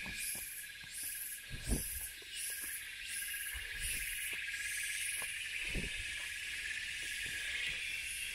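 Rainforest insect chorus: a steady high shrill buzz with a pulsing call above it, repeating about one and a half times a second, which fades after about five seconds. A couple of low thumps cut through it, the loudest about two seconds in.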